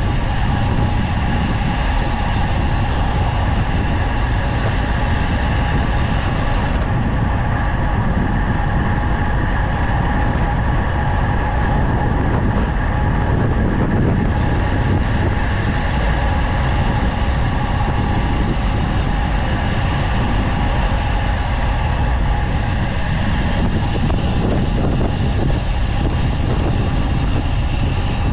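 Heavy wind buffeting on the camera microphone of a road bike descending at speed, with a steady faint whine running underneath.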